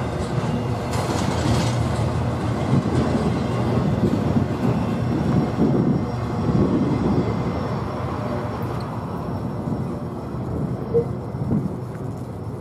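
Intermodal freight train's container cars rolling past, a steady low noise of steel wheels running on the rails that eases off somewhat toward the end as the train's tail moves away.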